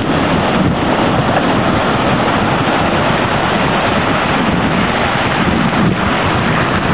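Ocean surf breaking and foaming in the shallows, with steady wind noise on the microphone.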